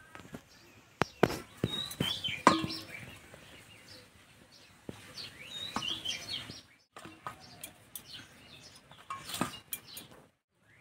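Small birds chirping off and on, with a few sharp clicks and knocks as dough balls are handled and set down in a steel bowl. The loudest knock comes about two and a half seconds in.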